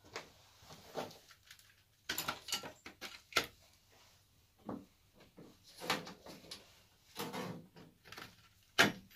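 Irregular knocks, clatters and rustles of tools and cables being handled on a metal workbench, the loudest knock near the end.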